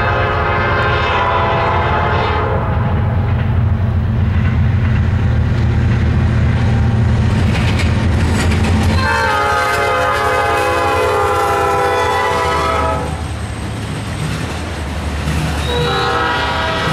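Norfolk Southern diesel locomotives passing with the horn sounding three times: a blast that ends about two seconds in, a longer one from about nine to thirteen seconds, and a shorter one near the end. A heavy diesel engine rumble underlies the first half, then the autorack cars roll by on the rails more quietly.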